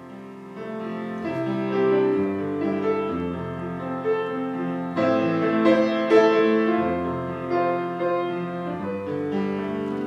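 Piano playing, with held notes overlapping one another, growing louder over the first two seconds.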